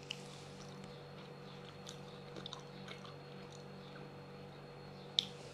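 Quiet room with a faint steady low hum and a few small, faint clicks and taps, a sharper tick near the end.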